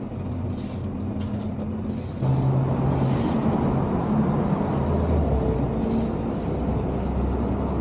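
A motor vehicle running, with a steady low hum and road noise that get louder about two seconds in.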